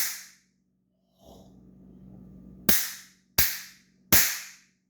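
Hand Blasters trick noise makers going off: three loud, sharp pops in quick succession in the second half, each with a short ringing tail. Another pop, set off just before, fades out at the start.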